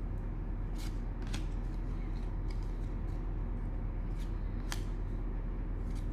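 Trading cards and their plastic packaging being handled: a handful of separate sharp clicks and flicks over a steady low hum.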